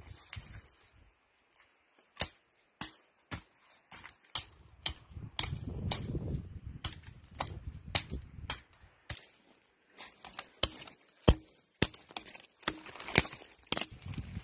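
Dry twigs and dead conifer branches snapping and crackling under foot and against bodies, with brush rustling, as people push through a dense thicket; the snaps come irregularly, a dozen or more sharp cracks.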